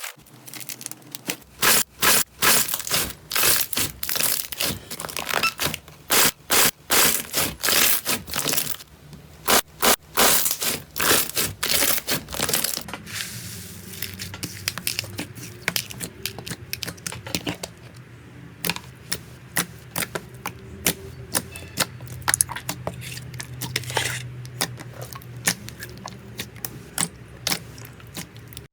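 Slime being squeezed and poked by hand, making crackling, popping sounds. There is a run of loud sharp pops for about the first twelve seconds, then quieter, denser crackling over a low steady hum.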